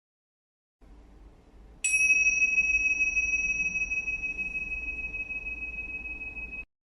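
A small bell struck once: a 'chīn' ding about two seconds in, ringing on a clear high tone that fades slowly and is cut off abruptly about five seconds later, over faint room noise.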